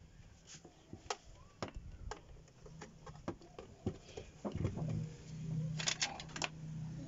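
Plastic clicks and knocks as cables are handled and plugged into a thermal label printer. About halfway through, a low steady hum comes in.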